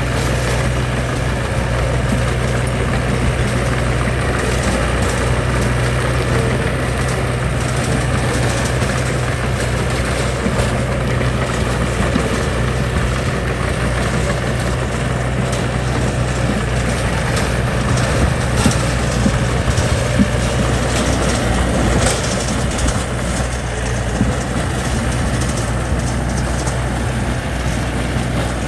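Diesel engine of a heavy earthmoving machine running steadily, with a few faint knocks or clanks.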